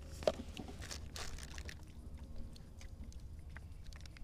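Penn Battle III spinning reel being worked by hand, giving scattered small clicks and ticks, over a steady low wind rumble on the microphone.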